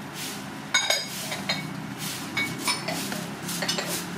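Metal spoon clinking and scraping against an aluminium saucepan, a string of sharp ringing clinks at uneven intervals, the loudest about three-quarters of a second in.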